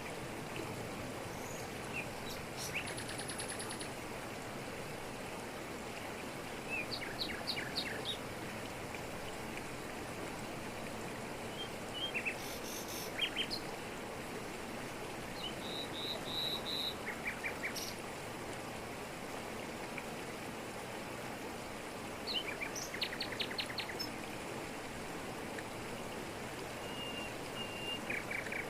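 Steady rush of a waterfall pouring over rocks, with birds calling over it in short bursts of chirps and quick trills every few seconds.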